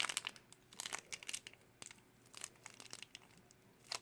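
Plastic wrapper of a Shopkins blind bag being crinkled and torn open by hand, in irregular bursts of crackling.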